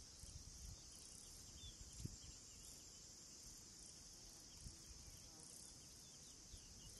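Faint, steady insect chirring, with a single soft low thump about two seconds in.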